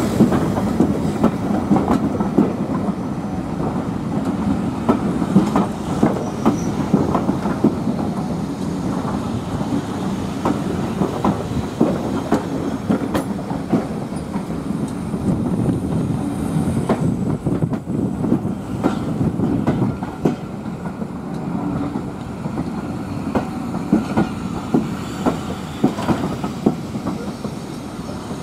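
Passenger coaches of a steam-hauled train rolling slowly past at close range, wheels clicking and knocking irregularly over the rail joints above a steady rumble.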